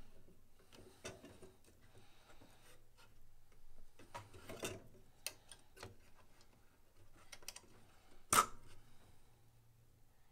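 Scattered small clicks and light knocks from hands handling the amplifier's circuit boards and pulling their connectors, with one sharper click about eight seconds in.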